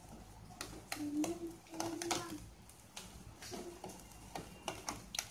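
Bread slices toasting on a hot tava over a low gas flame, with faint, irregular crackling and ticking, several small clicks a second.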